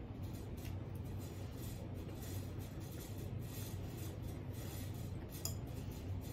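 Quiet eating sounds: a metal fork scraping and clinking against a glass pie dish as it cuts into soft cake, with faint chewing, over a steady low hum.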